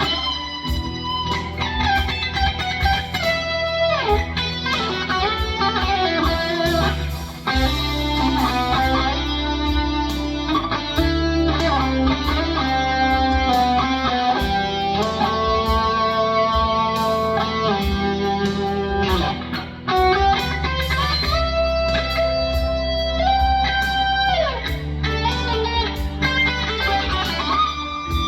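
Electric guitar improvising lead lines in E minor through an FM9 amp modeller, with sustained distorted notes and several string bends, over a steady low backing part.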